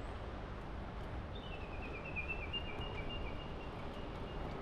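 A bird calling: a quick run of short high notes that steps down a little in pitch and then holds on one note for about three seconds. A steady low rumble of wind noise lies underneath.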